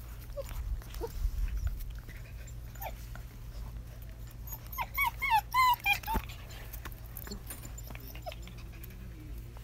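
Six-week-old German Shepherd puppies at rough play, one giving a quick run of short high-pitched cries about five seconds in, with a few fainter calls earlier.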